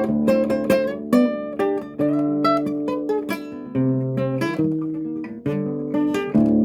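Acoustic guitar playing a choro: a quick plucked melody over ringing bass notes, with a few louder chords struck about a second in and near the end.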